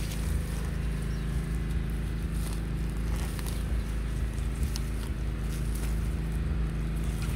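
Scallions being pulled up by hand from dry, grassy soil: scattered crackles and rustles of dry grass and roots tearing loose, over a steady low hum.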